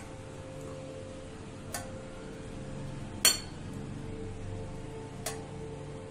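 Milk tea being poured from a steel saucepan through a metal tea strainer into ceramic mugs, with three sharp clinks of metal against the mugs, the loudest about halfway through.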